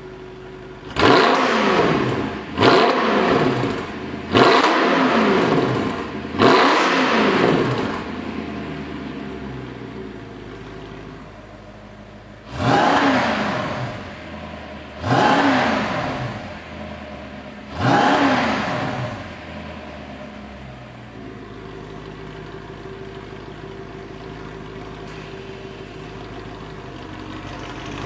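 Audi RS5 B8's 4.2-litre V8 revved through an Armytrix cat-back valvetronic exhaust with the car standing still: four sharp blips of the throttle in quick succession, a pause, then three more, each rev falling away in pitch back to idle. It settles into a steady idle near the end.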